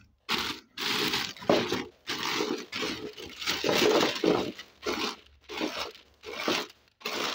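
Clear plastic bag full of small plastic toy animals crinkling as hands press and shake it, in a quick run of short rustling bursts.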